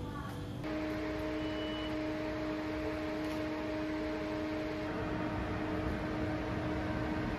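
Steady hum of an electric train standing at a station platform: a constant low tone with a fainter higher tone above it. The higher tone drops out about two-thirds of the way through.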